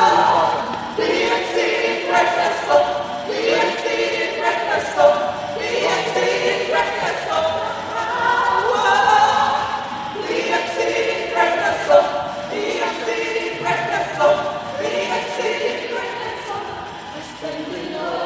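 Church choir singing in harmony, in phrases of a few seconds each.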